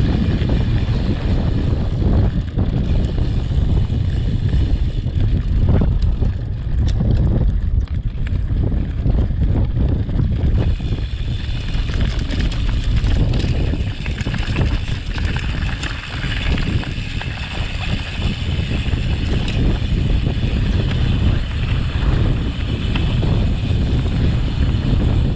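Wind buffeting the microphone over a constant rough rumble from a mountain bike descending a rocky mountain trail.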